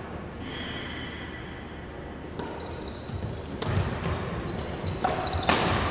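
Badminton rally: shoes squeaking on the sports-hall floor, footsteps thudding, and a few sharp racket strikes on the shuttlecock in the second half.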